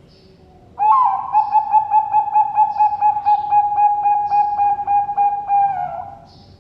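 Zebra dove (Thai-bred 'Bangkok' perkutut) singing one long song of rapid coos on a steady pitch, about five a second, ending in a short drop in pitch. Faint high chirps of small birds run underneath.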